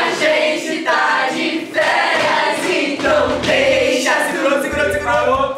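A group of voices singing a pop song together, with a bass beat joining about three seconds in.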